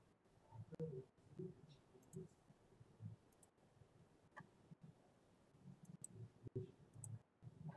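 Near silence with a few faint clicks and faint low murmurs.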